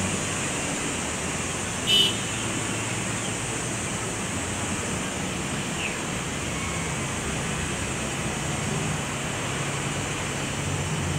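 Steady, even outdoor ambience of distant traffic and surf. One brief, sharp high-pitched sound cuts in about two seconds in.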